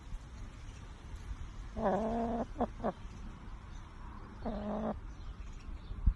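A cat meowing twice, with two short chirps right after the first meow, and a short thump near the end.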